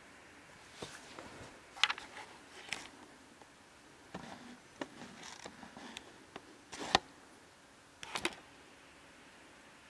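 Camera handling noise: scattered knocks, clicks and rustles as the camera is shifted and moved about. The loudest is a sharp knock about seven seconds in.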